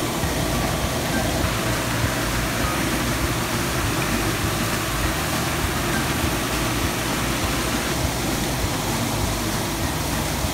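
Water jets of a ball-launcher fountain exhibit rushing and splashing steadily into a shallow pool.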